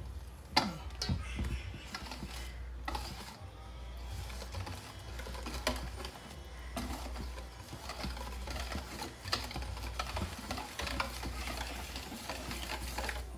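Irregular light clicks and knocks of kitchen work, such as utensils and containers being handled, over a low steady hum.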